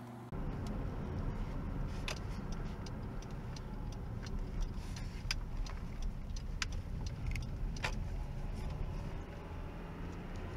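A car driving, heard from inside the cabin through a small camera's built-in microphone: a steady low road rumble that starts a moment in, with scattered sharp clicks and ticks.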